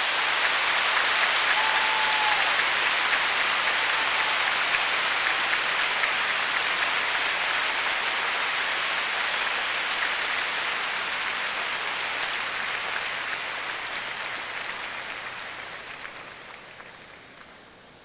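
Large arena crowd applauding, the clapping at full strength at the start and dying away over the last few seconds.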